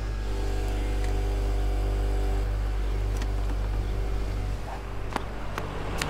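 Refrigerator humming, a steady low drone with a faint higher tone over it, and a few light clicks.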